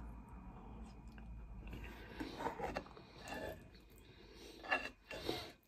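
A toothless eater gumming and chewing a mouthful of creamy pasta: soft, irregular, wet mouth sounds, with a couple of sharper clicks near the end.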